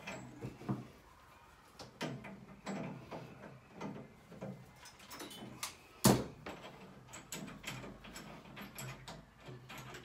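Scattered clicks, taps and knocks of gas pipe fittings being handled by hand under a gas boiler, as the cap on the capped-off gas connection is unscrewed and the pipe is fitted back on. The sharpest knock comes about six seconds in.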